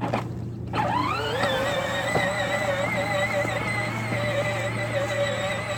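Peg Perego Gator 12-volt electric ride-on toy's motors and gearbox whining: the pitch climbs quickly about a second in as it speeds up, then holds as a steady, slightly wavering whine as it drives over grass.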